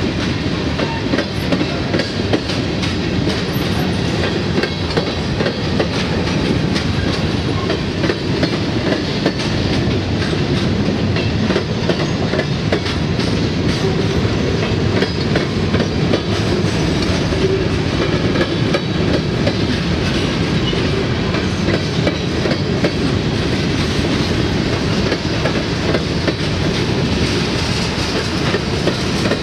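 Freight train of covered grain hopper cars rolling past close by: a steady rumble of steel wheels on rail, with frequent clicks as the wheels cross the rail joints.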